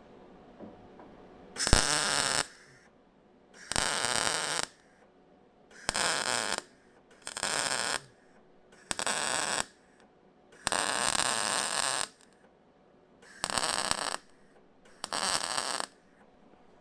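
MIG welder arc crackling on sheet-steel body panel in eight short bursts of about a second each, with quiet pauses between: tacks and short beads laid one at a time to keep the heat down and limit warping.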